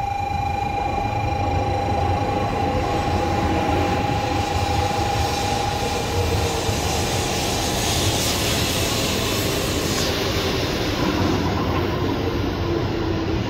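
N700-series Shinkansen bullet train slowing as it pulls in along the platform: steady rushing rail and air noise with a whine. The whine holds steady at first, fades about halfway, and a lower one then falls steadily in pitch as the train slows.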